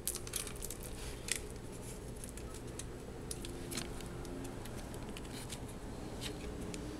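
Scattered light clicks and taps of hands handling laptop screen parts and tape, over a low steady hum.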